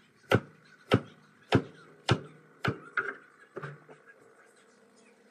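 Kitchen knife chopping through a bamboo shoot onto a plastic cutting board: about seven sharp chops, roughly one every half second or so, the last ones weaker, stopping a little under four seconds in.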